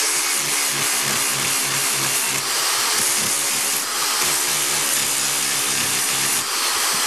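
Makita electric drill spinning an abrasive disc against the cut edge of quarter-inch mirror glass: a steady grinding over the drill motor's hum.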